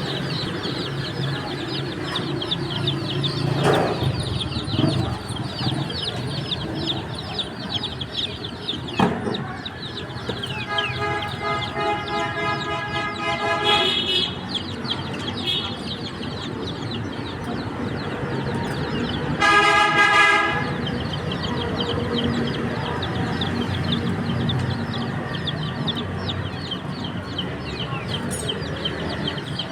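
A dense chorus of baby chicks peeping continuously. A vehicle horn sounds twice: a longer note about eleven seconds in, and a louder, shorter blast about twenty seconds in, over a low background rumble.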